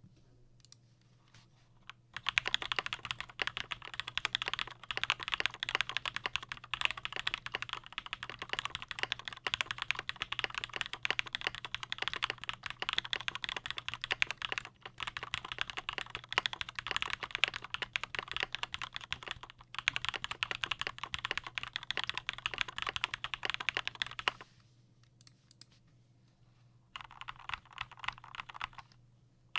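Custom KBD75V2 mechanical keyboard with an aluminium plate, lubed Durock POM linear switches and PBT doubleshot keycaps, typed on continuously and fast. A few scattered keystrokes open it, then steady typing runs to about three-quarters of the way through. After a pause of a couple of seconds, typing resumes near the end.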